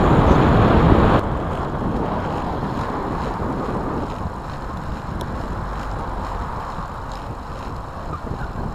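Wind rushing over the microphone of a moving recumbent trike, a steady rush without any tone. It is loud for about the first second, then drops suddenly to a lower level that eases off gradually.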